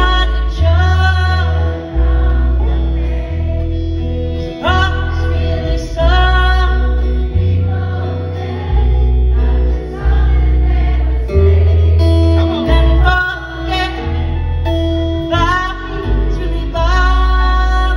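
Live country band playing a song: a woman sings lead over acoustic guitars, upright bass and drums, with the bass notes changing about once a second.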